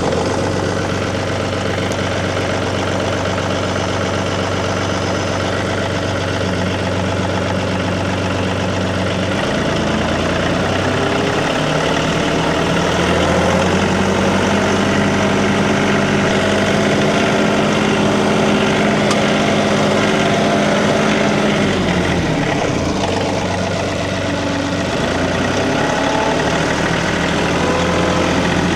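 Tractor engine running, its speed stepping up about a third of the way in and holding higher, then dropping for a few seconds before rising again near the end.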